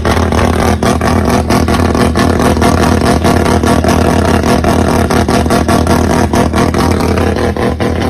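Mazda RX-3 rotary engine idling loudly at a steady speed, with irregular sharp pops and cracks running through it.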